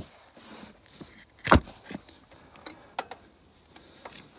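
Handling noise from a phone camera being moved: a few scattered knocks and clicks, the loudest about one and a half seconds in.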